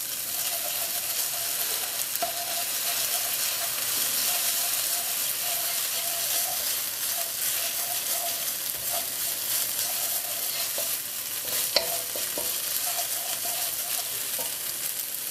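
Diced onion, red pepper, garlic, ginger and shrimp paste sizzling in hot oil in a frying pan as they are stirred, with one sharp knock about three-quarters of the way through.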